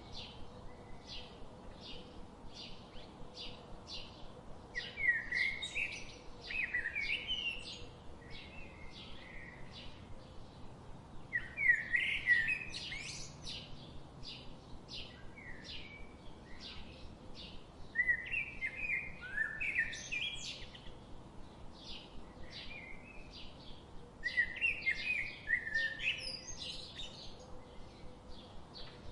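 Songbirds chirping: a steady run of short, high chirps about two a second, with a louder warbling song phrase breaking in roughly every six or seven seconds.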